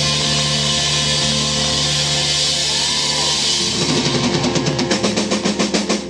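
A live rock band holds the closing chord, electric guitar and bass ringing under a wash of cymbals. About two-thirds of the way in the drummer breaks into a fast roll around the kit, building to the song's final hit.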